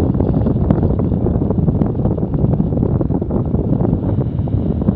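Airflow of a paraglider in flight buffeting a body- or helmet-mounted camera's microphone: loud, steady wind noise, strongest in the low range.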